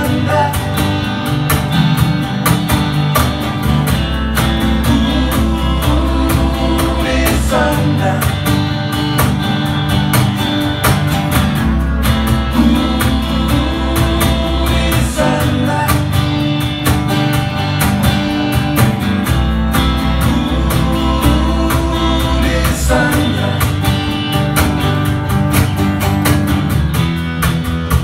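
Live acoustic band playing: two acoustic guitars strummed over a steady cajon beat, with a man singing.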